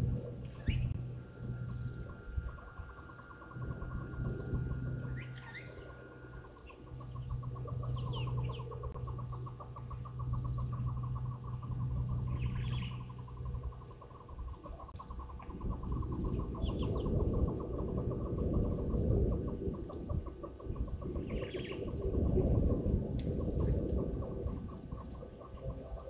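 Steady high-pitched chirring of crickets and other night insects, with a lower rapid pulsing trill for the first half and several short bird chirps scattered through. A low rumbling noise swells in the second half.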